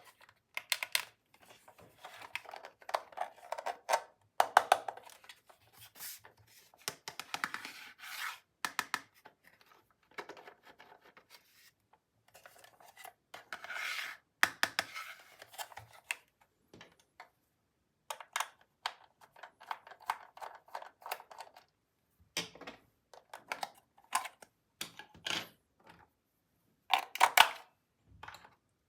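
Plastic toy pieces and packaging handled up close: irregular clicks, taps and crinkly rustling, with short pauses between.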